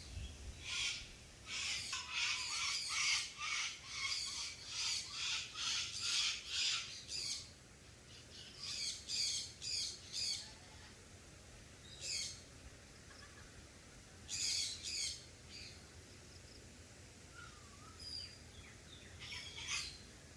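A bird giving harsh, rasping calls in runs of several, about two a second, with pauses between the runs and a few single calls later on.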